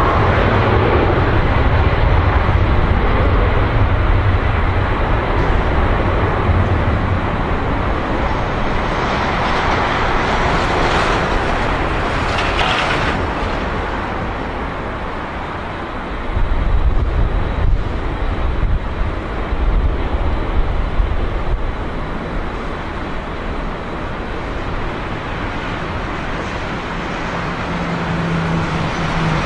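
Steady rumbling roar of a large vehicle, with a brief brighter hiss about twelve seconds in and the low rumble swelling again a few seconds later.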